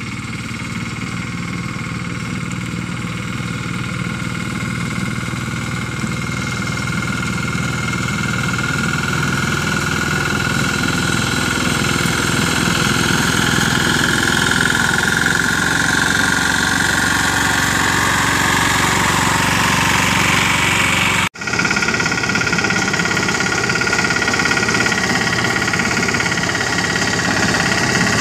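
Engine of a small 'Bullet' mini tractor running steadily under load as it drives a front-mounted soybean reaper through the crop, getting gradually louder as the machine comes close. The sound cuts out for an instant about two-thirds of the way through.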